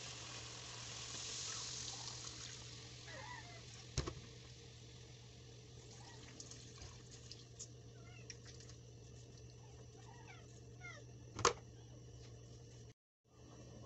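Coconut milk squeezed by hand from grated coconut through a metal mesh strainer, pouring and dripping into a wok of fish. A metal strainer knocks sharply twice, about four seconds in and again, louder, near the end.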